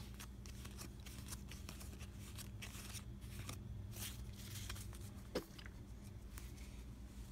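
Faint rustling and light clicks of a hand thumbing through a deck of game cards, with one slightly louder click about five seconds in, over a low steady hum.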